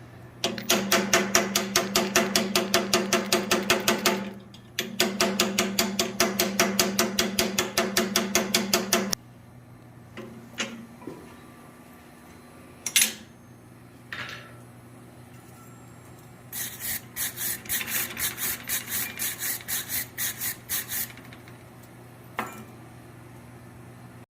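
Rapid hammer blows on steel at the anvil, about five a second with a ringing tone, in two runs of about four seconds each. A few single knocks follow, then a lighter, brighter run of blows near the end.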